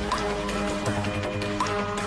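Electronic phone ringtone music: held synth tones over low bass notes, with a short upward swoop about every second and a half.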